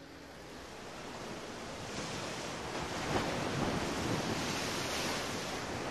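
Storm sound effect of rushing water and wind, swelling in over the first two seconds and then holding steady.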